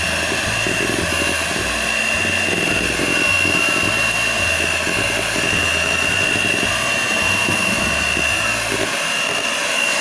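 250 W electric hand mixer running steadily with a high motor whine, its beaters whipping a cream and condensed-milk mixture.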